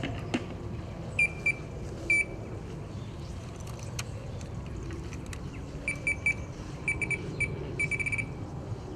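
Electronic carp-style bite alarms on the rods giving short high beeps as the line is moved across them while the bobbins are set. A few single beeps come in the first couple of seconds, then quicker runs of beeps from about six seconds in, ending in a rapid string.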